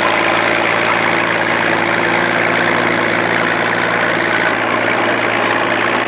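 Engine of an International T-40 crawler tractor, a big six-cylinder, running steadily.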